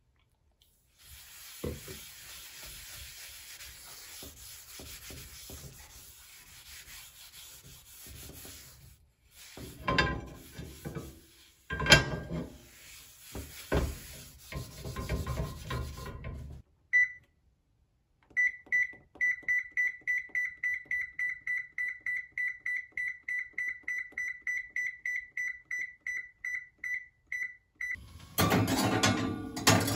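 Rubbing or scrubbing for several seconds, then a few sharp knocks and clatter, the loudest about twelve seconds in. An electronic beeper then gives one beep, and a second later a fast run of beeps at one high pitch, about three a second, for roughly ten seconds.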